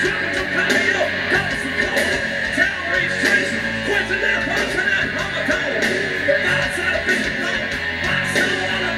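Live rock band playing: electric guitar over a steady drum beat.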